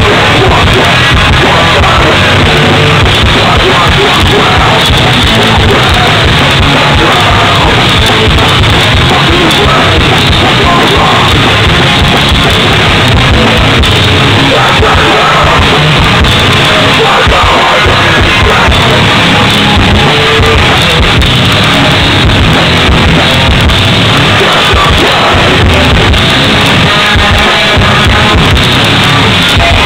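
Hardcore band playing live: loud distorted electric guitars and drums with a vocalist yelling over them.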